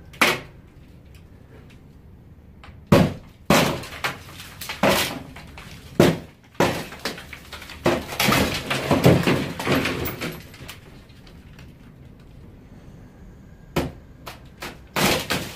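Old, rotten, termite-eaten ceiling boards being pulled down. Sharp cracks and knocks come one at a time, then a longer crashing clatter of falling pieces and debris in the middle, and a few more sharp hits near the end.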